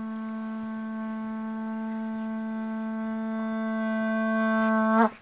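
A conch shell (pū) blown in one long, steady-pitched note that swells slowly louder and stops abruptly about five seconds in. It is the ceremonial conch call that opens the event after a blessing.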